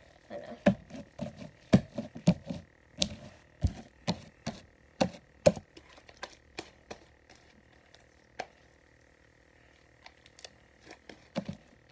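Slime being kneaded and squeezed by hand: irregular wet clicks and pops as air pockets squash out. They come thick and fast at first and thin out to a few scattered pops after about six seconds.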